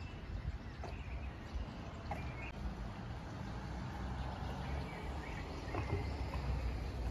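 Outdoor street ambience: a steady low rumble with a few short, high bird chirps scattered through it.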